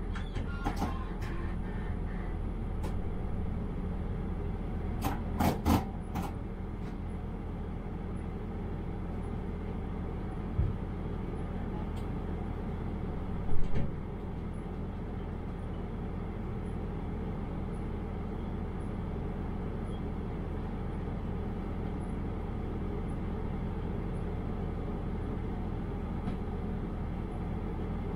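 Diesel railcar idling steadily while standing at a station, with a few clicks and knocks in the first half; the loudest is a sharp knock about two-thirds of the way through.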